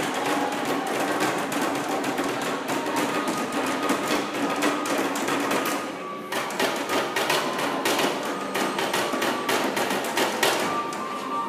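Student percussion ensemble playing bare drumheads, many rapid strokes overlapping in dense patterns, with a brief lull about six seconds in.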